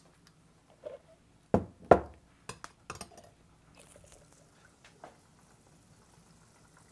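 Spiced butter bubbling faintly in a pot as it clarifies, broken by a few sharp knocks and clicks, the two loudest close together about one and a half seconds in.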